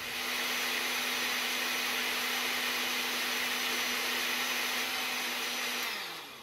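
Countertop blender motor running at a steady pitch, churning a thin batter of eggs, water, oil and coconut flour. Near the end it is switched off and the motor note falls away as it spins down.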